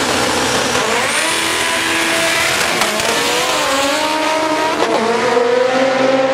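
Two drag-racing cars launch hard about a second in and accelerate down the strip, one of them turbocharged. The engine pitch climbs through each gear and drops at the upshifts, about three and five seconds in.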